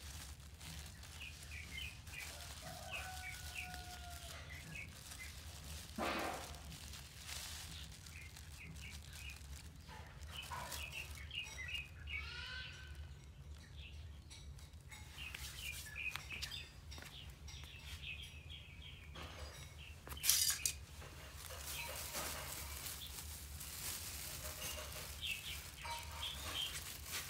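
Small birds chirping and calling, with short repeated chirps and a few gliding whistles. Thin plastic bags rustle now and then as they are handled, loudest about 20 seconds in.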